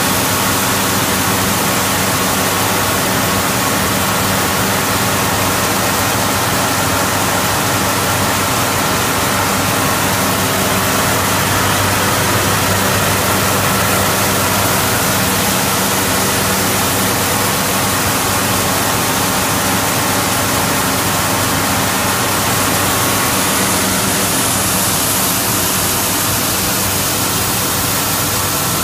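Coffee milling machinery running: green coffee beans streaming and rattling down a metal chute onto a sorting table, in a loud steady hiss over a constant machine hum.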